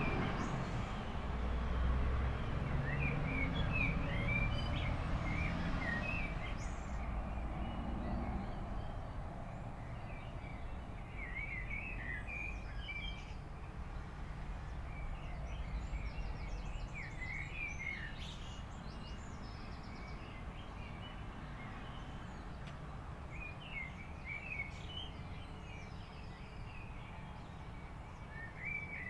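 Small birds chirping on and off in short bursts over a steady low rumble. The rumble is heaviest in the first eight seconds.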